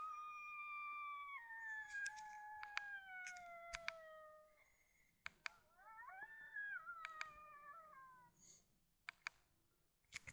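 Coyote howling, faint: one long call that holds, steps down and slides lower over about four seconds, then a shorter call that rises and falls, with a few sharp clicks between.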